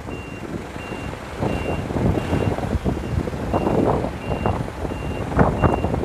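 Reversing beeper on an Isuzu Elf diesel minibus as it backs up: a short, high, even beep about three times every two seconds, over the rumble of the running vehicle.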